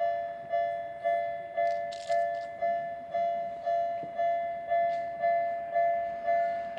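Japanese railway level-crossing warning bell ringing its repeated two-tone ding, about two strikes a second, each fading before the next: the crossing is active, signalling a train on the way.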